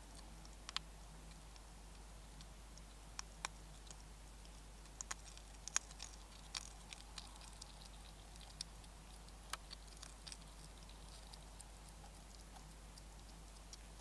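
European hedgehog eating dry pellet food from a dish: irregular sharp crunches and clicks, the loudest near the middle, over a faint steady hum.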